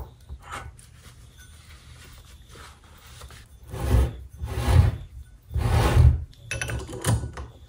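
Steel wrenches clinking and scraping on the Bridgeport mill's step-pulley hub while a spanner is set onto its inner tensioning nut. Three louder rasping swells come a little past halfway, with a few light ticks before and after.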